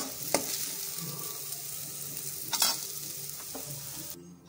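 Onions sizzling in hot oil in a pan, stirred with a spoon, with a few sharp clinks of the spoon against the pan. The sizzle cuts off suddenly near the end.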